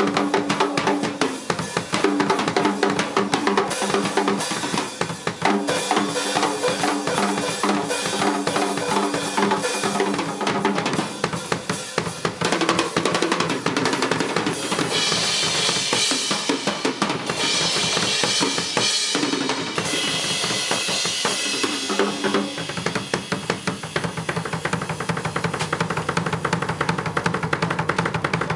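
Drum kit solo: fast strokes around the toms with bass drum underneath, then cymbals washing bright for several seconds in the middle, going into rapid rolls near the end.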